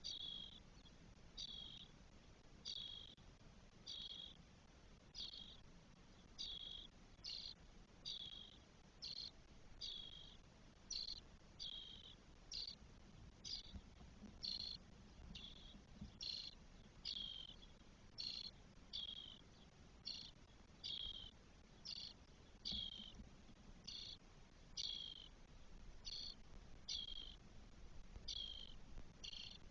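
A bird's short, high, falling call, repeated regularly about once a second.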